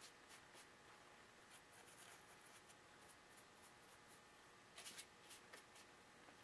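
Near silence with faint, scattered scratchy ticks and a few slightly louder ones about five seconds in: a paintbrush working an acrylic wash onto plaster rock castings.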